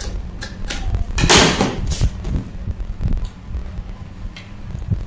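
Fabric shears snipping through cotton print fabric in a few quick, even cuts, then a louder rustle of fabric about a second and a half in, followed by sparse handling sounds, over a steady low hum.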